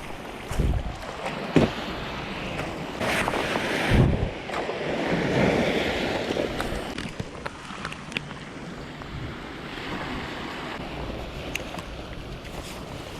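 Sea waves washing, with wind noise on the microphone and a few thumps in the first four seconds.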